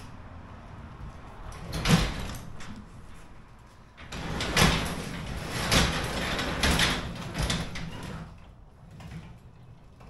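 A sectional garage door on newly converted high-lift tracks is pushed up by hand on its first test opening. There is a loud burst of door noise about two seconds in, then a longer loud stretch with several peaks from about four to eight seconds in, as the door travels up.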